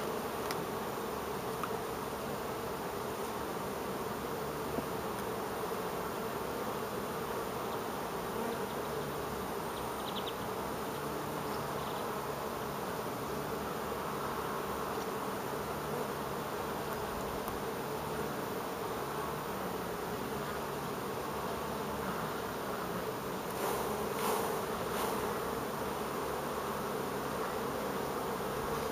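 Carniolan honey bees buzzing steadily around an opened hive, with a few short louder noises near the end.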